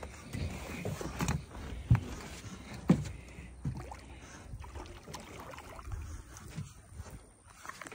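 Water sloshing against a small fishing boat's hull with irregular knocks, and two sharp thumps about two and three seconds in.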